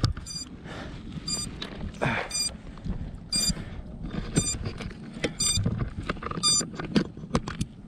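An FPV quadcopter's lost-model beeper chirping in short, high beeps about once a second, after the quad came down in a crash. Clicks and rustling of the quad being handled, with wind on the microphone.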